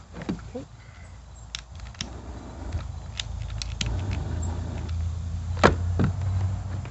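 A butane torch lighter clicks several times, then its flame runs with a steady low rush that grows louder. There is a sharp click near the end.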